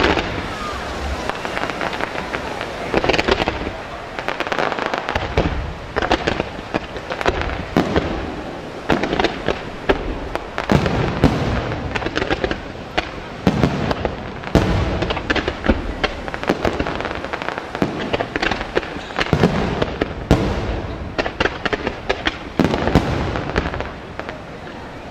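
Aerial firework shells bursting in quick succession: a near-continuous run of bangs and pops, with heavier booms every few seconds.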